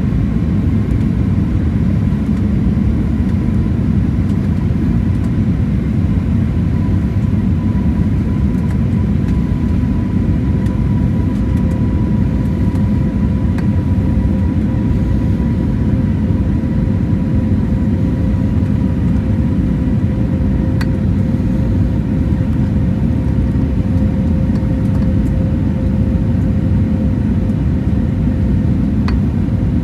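Steady in-flight cabin noise of an Airbus A320neo during descent: a deep rushing rumble of airflow and its CFM LEAP-1A engines, with two faint steady hums above it.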